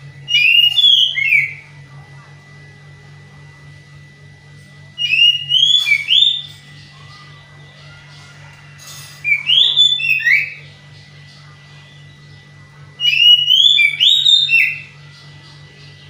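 Caged male Oriental magpie-robin (kacer) singing four short bursts of quick, whistled, up-and-down notes, about four seconds apart, over a faint steady hum. Its keeper hears the song as monotonous, the sign of a bird in song but still short of breeding drive (kurang birahi), not yet reaching its full excited 'konslet' performance.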